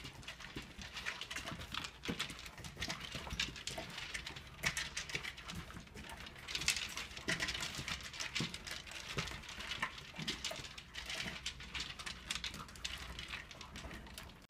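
Dry kibble rattling and clicking against hard plastic slow-feeder bowls as two puppies eat from them, a dense, uneven run of quick clicks and clatters.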